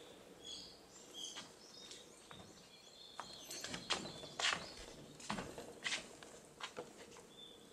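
Outdoor ambience with small birds chirping now and then, and a string of light taps and knocks in the middle.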